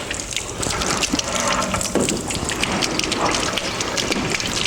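Water gushing and splashing through the plumbing of a demonstration drain line, with many small sharp ticks and splashes over a steady rush.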